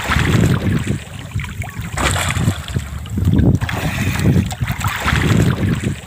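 Wind buffeting the microphone in gusts over water sloshing and splashing against the side of a small wooden outrigger boat.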